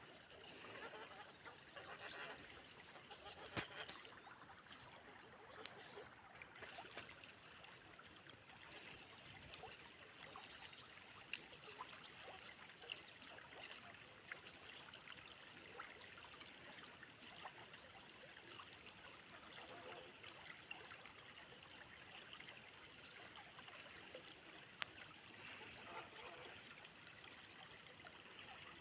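Faint, steady rush and trickle of a flowing river, with a few brief sharp clicks in the first few seconds.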